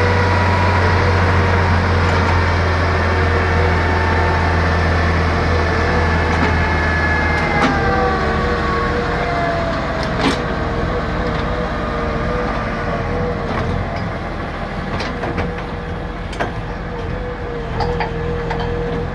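Borewell drilling rig's engine running steadily while the lattice mast is raised upright. About seven seconds in the engine note changes and a whining tone falls in pitch. Several sharp knocks follow in the second half.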